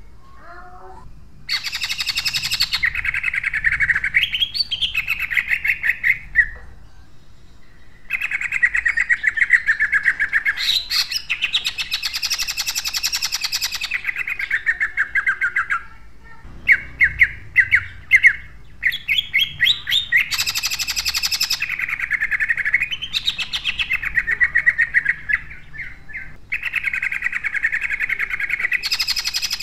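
Cucak ijo (green leafbird) singing in loud, rough-toned bouts of very fast repeated notes (the rapid-fire 'tembakan'), each lasting a few seconds with short pauses between them. About halfway through, a run of separate sharp chirps breaks in between bouts.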